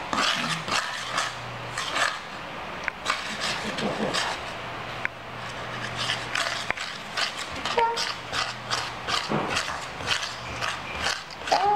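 Metal spoon stirring and scraping against a stainless steel bowl, working condensed milk into powdered milk in quick repeated strokes.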